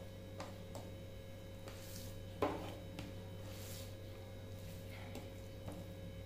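Hand-eating sounds: fingers mixing and scooping rice with fish curry on a plate, with soft chewing and mouth sounds. Small clicks throughout and one sharper click about two and a half seconds in, over a steady low hum.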